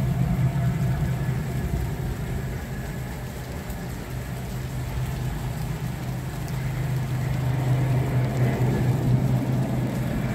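Gentle rain falling, with a steady low motor hum underneath that grows louder in the second half.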